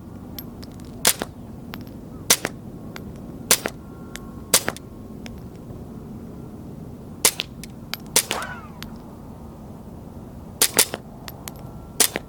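Suppressed .22 LR Ruger MKIII pistol with a SilencerCo Sparrow silencer firing subsonic rounds: about nine sharp cracks at uneven intervals of roughly a second, each followed by a fainter click of the action cycling. A little past the middle one shot is followed by a brief falling ring.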